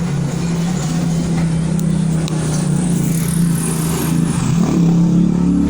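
An engine running steadily in the background, a low droning hum that dips and wavers briefly about four and a half seconds in.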